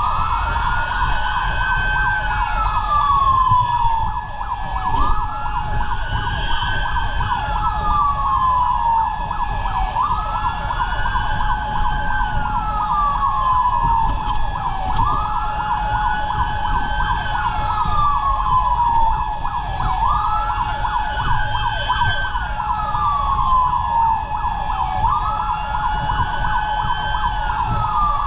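Fire truck siren wailing in repeated cycles, each rising quickly and falling slowly, about one cycle every five seconds, over a steady held tone. A low rumble of road and engine noise runs underneath.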